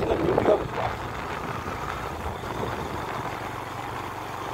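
Steady engine and road noise of a moving vehicle, a low even rumble.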